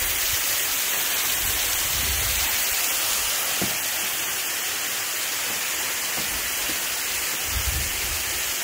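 Waterfall pouring down, a steady rushing hiss of falling water, with two brief low rumbles about two seconds in and near the end.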